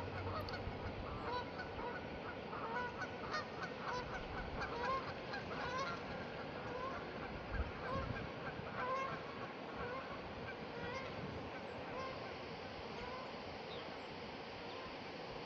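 A flock of geese honking repeatedly, a rapid run of short rising honks that thins out in the second half, over the steady rush of wind.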